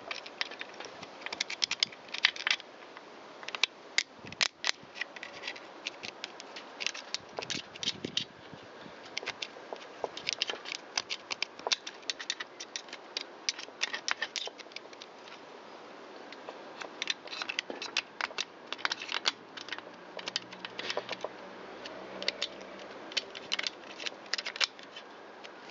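A small screwdriver scraping and picking packed plant debris out of a chainsaw's brake band and clutch area, making irregular metallic scratches and clicks. The debris is jamming the brake.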